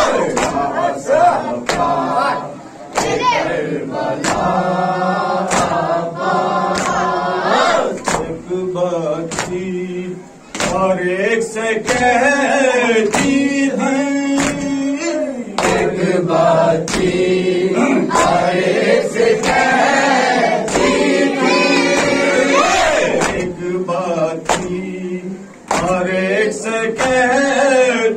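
A man leads a noha, a Shia mourning chant, through a microphone, with a group of male voices answering him. It is kept in time by a steady rhythm of sharp open-hand slaps, the chest-beating (matam) of the mourners.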